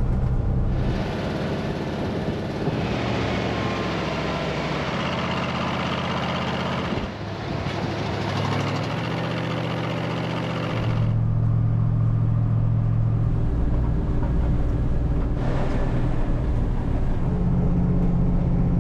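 MAN KAT 4x4 truck engine running under way, heard from inside the cab, its note shifting up and down in steps. A rushing wind and road hiss is loud over the first half and drops away about eleven seconds in.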